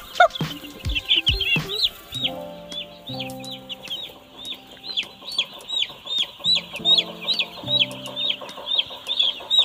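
A flock of broiler chicks peeping: many short, high, downward-slurred peeps, several a second, starting about a second and a half in, over background music with long held low notes.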